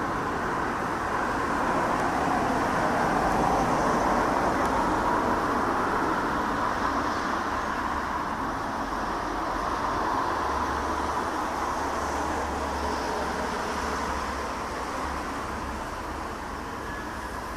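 Jet airliner heard from the ground as a steady distant rumble from its GE90 engines, swelling a few seconds in and slowly fading toward the end.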